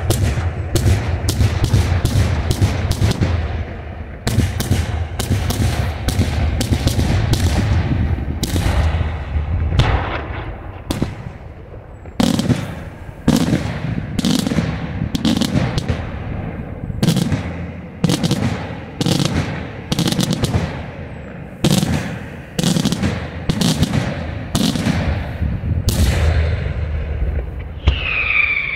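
Daytime fireworks: aerial shells bursting overhead with sharp bangs. A dense rapid volley for about the first twelve seconds, then separate loud bangs about one or two a second with a low rumble between them.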